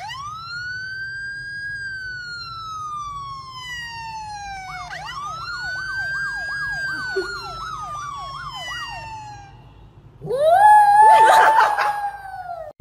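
Siren sound played through a phone: one long wail that rises and then falls, then a fast yelp of about ten quick up-and-down sweeps. About ten seconds in, a small dog howls loudly along with it for a couple of seconds.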